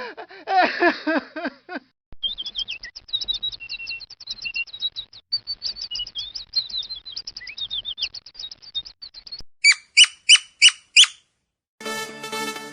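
Songbird singing: a fast, twittering run of high chirps lasting several seconds, followed by five loud, separate calls, each falling in pitch. Before the song there is a short burst of lower, wavering calls, and electronic music starts just before the end.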